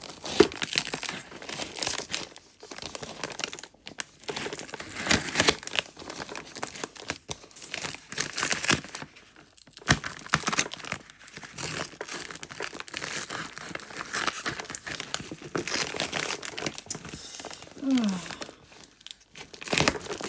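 Packaging being unwrapped by hand: irregular crinkling and rustling of wrapping with bits of tearing, in stops and starts.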